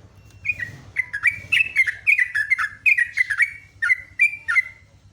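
Yellow-vented bulbul singing a rapid run of bubbling, chattering notes that dip in pitch, about a dozen in quick succession, stopping just before the end.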